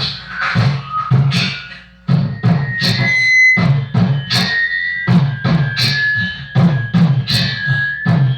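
Instrumental rap beat playing: a steady drum pattern with a high held synth melody. It briefly drops out about two seconds in, then comes back in.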